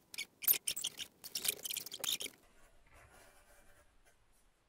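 Cardboard being handled and scraped, with a quick run of short scratchy rustles for about two seconds, then fainter rubbing.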